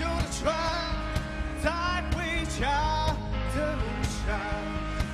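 A male voice singing a Mandarin pop-rock song live, over a rock band with electric guitars and a steady beat.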